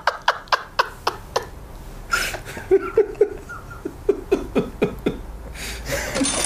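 A man and a woman laughing in short repeated ha-ha bursts, a few a second, with a brief lull about two seconds in before a second run of laughter.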